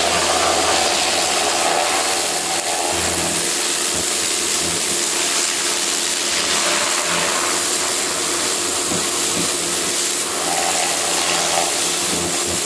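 Pressure washer running steadily: the water jet hisses as it blasts caked grass off the underside of a steel lawnmower deck, over the steady hum of the washer's pump.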